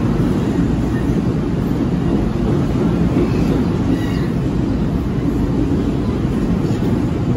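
NJ Transit MultiLevel passenger coaches rolling past close by: a steady low rumble of the wheels on the rails.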